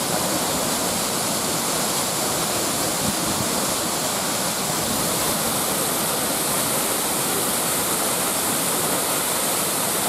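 Man-made waterfall pouring steadily down a rock face: a constant, even rush of falling water, a little brighter in the second half.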